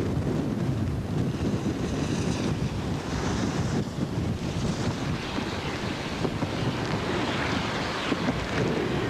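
Wind blowing across the camera microphone: a continuous low rumble with patches of hiss that come and go.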